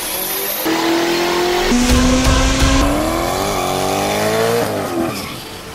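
Quick cuts between high-revving performance car engines, the pitch jumping to a new level at each cut. In the last clip the revs climb for about a second and a half and then drop away, with tires squealing in a burnout.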